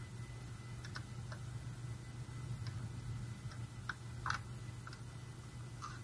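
Scattered light metallic clicks and ticks of a hex key turning a small machine screw into an electric scooter's rear wheel mounting plate, about nine irregular ticks with the loudest a little past four seconds in.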